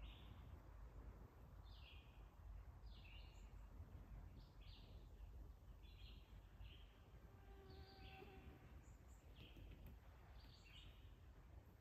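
Faint outdoor quiet with a bird calling over and over: short high chirps about once a second, over a low rumble.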